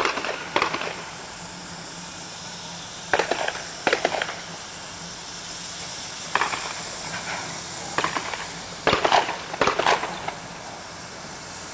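Small saddle-tank steam locomotive shunting wagons: a steady hiss of steam, broken by four irregular clusters of sharp clanks and bangs.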